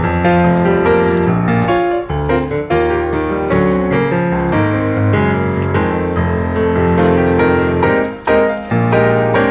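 Background piano music with a steady run of held notes.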